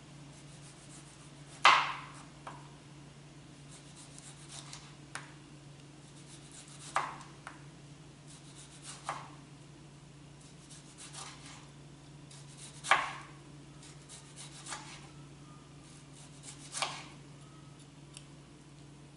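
Chef's knife slicing a tomato into thin rounds on a cutting board: sharp knocks of the blade meeting the board every few seconds, with soft cutting and scraping between them.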